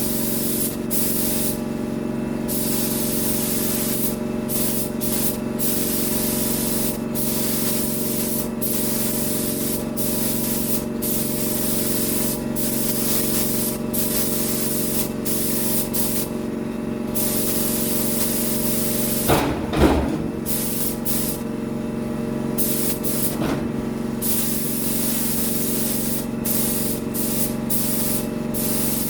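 Paint spray gun hissing as a coat of paint goes on, the trigger let go for short breaks every second or two, over a steady machine hum. A couple of brief knocks about two-thirds of the way through.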